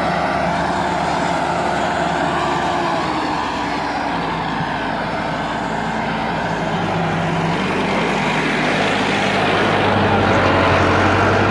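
Massey Ferguson 375 tractor's four-cylinder diesel engine running steadily under load as it pulls a loaded soil trolley through sand. It grows louder near the end.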